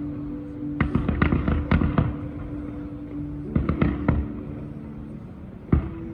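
Fireworks going off in quick clusters of sharp bangs, one group about a second in, another near four seconds, and a single bang near the end. Music with long held notes plays underneath.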